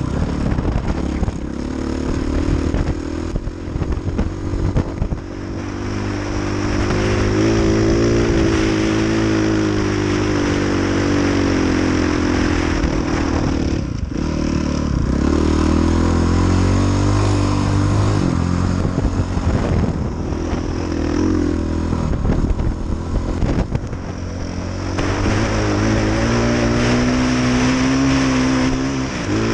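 KTM 450 XC-F dirt bike's single-cylinder four-stroke engine running under load, its pitch rising and falling as the throttle is worked, with a brief sharp drop about halfway through.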